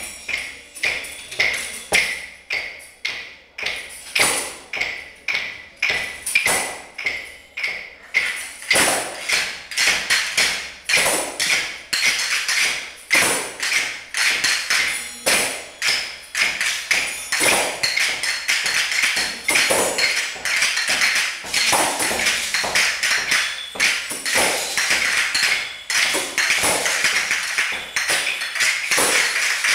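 A class of children playing a group rhythm on sheets of paper and small hand percussion such as shakers: sharp strikes and crackles about twice a second, thickening into a denser, busier texture after about eight seconds.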